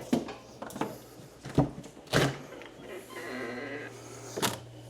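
Rummaging in a freezer: frozen, rock-hard packaged briskets knocking and clattering as they are moved, about five sharp knocks, with a short steady rasping sound a little past the middle.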